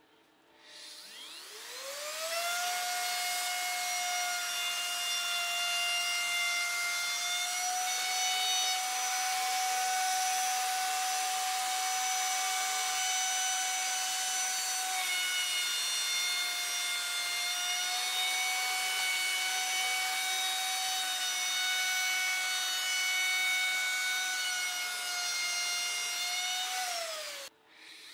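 Electric plunge router switched on, spinning up with a rising whine about a second in, then running at a steady high whine, its pitch shifting slightly now and then as it works the board. Near the end it is switched off and its whine falls away, then it starts spinning up again.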